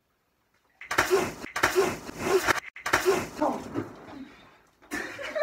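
A person shouting in a string of short, loud cries starting about a second in, without clear words.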